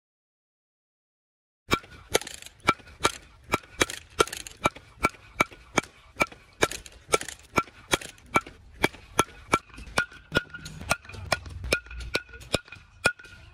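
A new composite baseball bat, being broken in, hitting balls at full power: a rapid run of sharp cracks, about three a second, each with a brief ringing tone. It starts after a silent second or two.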